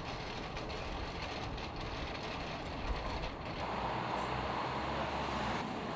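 Street traffic noise: a steady rumble of passing vehicles, swelling a little about four seconds in.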